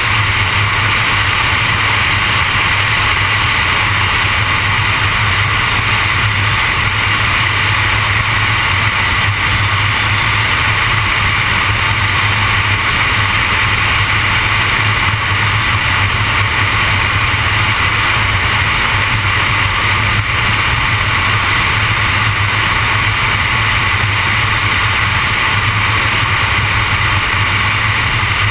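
Steady road noise of a car on the move: an even hiss over a low hum, with no change in pitch or level.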